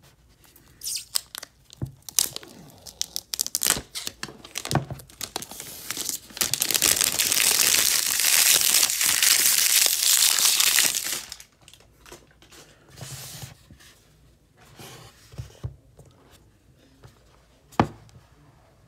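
Clear plastic shrink wrap being peeled off a phone box and crumpled by hand. Scattered crackles come first, then about five seconds of loud, continuous crinkling and tearing from about six seconds in, then softer rustles and a single sharp click near the end.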